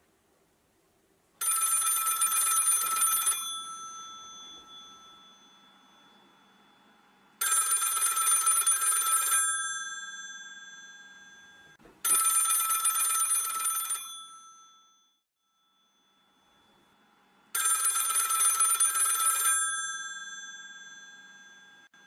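Old rotary-dial telephone bell ringing four times, each ring lasting about two seconds, with the bell tone fading out after each.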